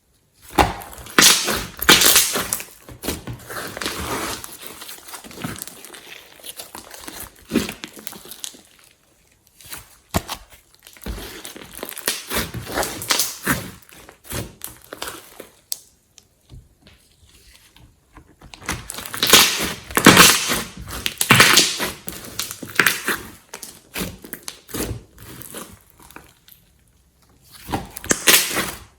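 Glossy slime being squeezed and kneaded by hand, making irregular crackling, clicking and squishing pops that come in clusters with short quiet pauses.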